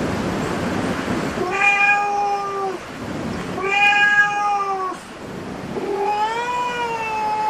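A cat meowing three times in long, drawn-out calls, the last one rising and then falling in pitch. A steady hiss fills the first second or so before the first meow.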